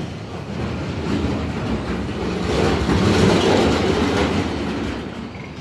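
Mercedes-Benz garbage truck with a Faun Rotopress body emptying a large metal wheeled bin: the engine runs under load as the rear bin lifter tips the bin, with rattling and clanking of metal. The noise builds to its loudest about three seconds in, then eases as the bin comes back down.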